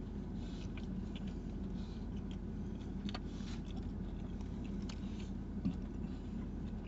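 Chewing a mouthful of crispy fried chicken sandwich, with scattered small crunches over a steady low hum.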